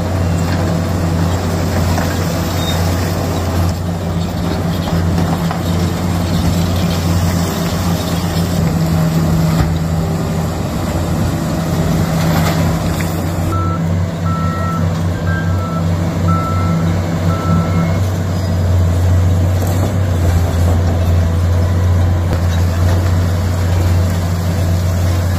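Heavy diesel engines of a mining excavator and haul trucks running steadily. A load of rock spills into a truck bed about halfway through, followed by a run of short reversing-alarm beeps.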